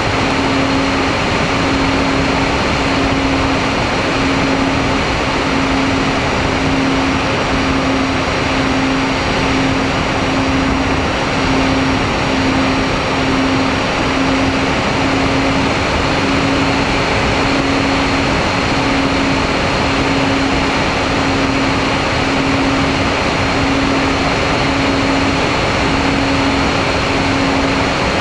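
MFD 1800 twin-motor RC plane in flight, heard from its onboard camera: a steady rush of wind and propeller noise with a low motor drone that swells and fades about once a second, and a faint high whine above it.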